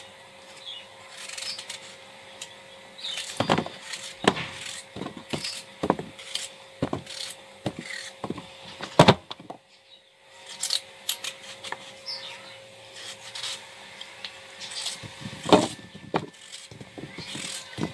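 Knife cutting raw peeled potato into chunks held over a bowl: a string of irregular crisp cuts, several a second, with pieces dropping onto the pile. There is a short pause about ten seconds in.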